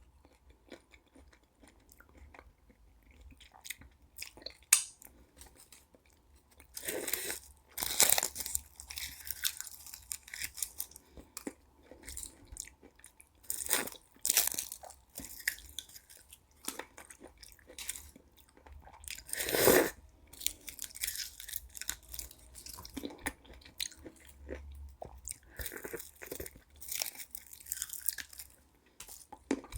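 Close-up eating sounds: crisp baked meringue of a Pavlova cake crunching and being chewed, in irregular bursts with a few louder crunches, after a quieter opening few seconds.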